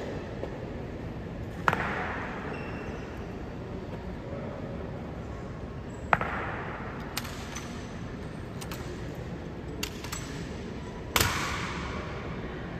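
Three sharp strikes, spaced about four and a half seconds apart, each ringing on in a large echoing hall, with a few fainter clicks between them. They fit honor guard soldiers stamping their boot heels on the stone floor in the slow, measured steps of the changing of the guard.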